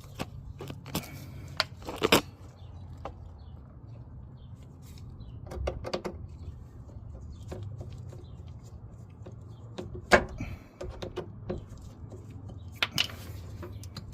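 Scattered clicks and knocks of hand work loosening the fuel hose at the fuel tank, over a steady low hum.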